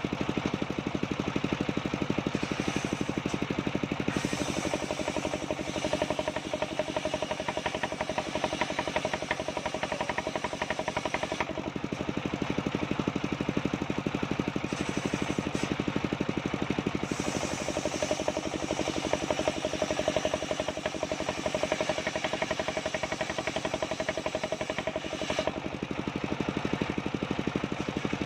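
Sawmill band-saw machinery running: a steady engine drone with a fast, even firing pulse, its tone shifting every several seconds.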